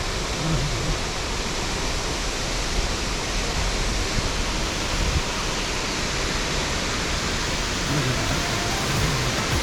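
Steady rushing of a large waterfall, Bald River Falls.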